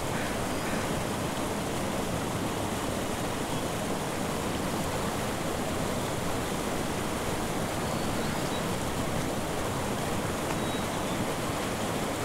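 Mountain stream rushing steadily over rocks, a constant even roar of water.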